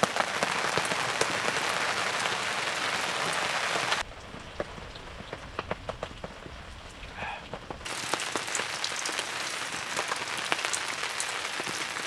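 Steady rain falling, a dense hiss with sharp drops tapping through it. About four seconds in it suddenly drops to a quieter patter of distinct single drops, then about eight seconds in the heavier hiss comes back just as suddenly.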